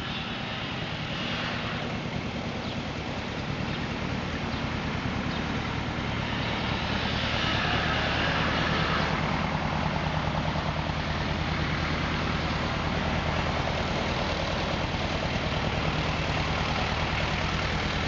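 Steady low hum of motor vehicle engines, as from nearby road traffic, under a constant rushing background noise; no duck calls are heard.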